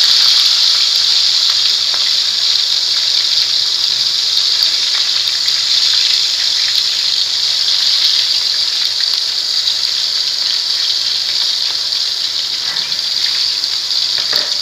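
Chicken pieces deep-frying in a steel pan of hot oil: a steady, loud sizzle with faint crackles of spattering oil.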